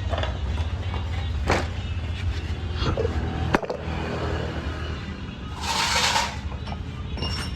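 Motorcycle workshop handling noises: scattered metal clicks and knocks, with a sharp tap about halfway through, and a short hiss lasting about half a second about three-quarters of the way through, over a steady low hum.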